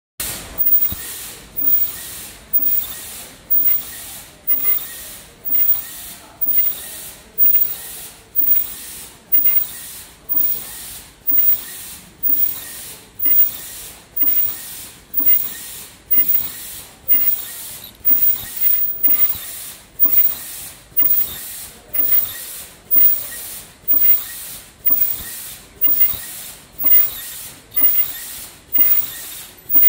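KN95 mask-making machine running, with a sharp, hissing stroke repeating evenly a little more than once a second as the line cycles through each mask.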